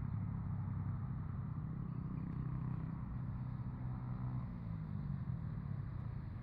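Low engine hum of a motor vehicle running, fading away about five seconds in.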